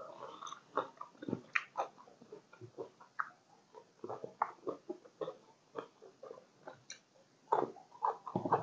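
A person chewing close to the microphone with wet mouth and lip smacks, a few irregular clicks a second, while eating Isan sausage.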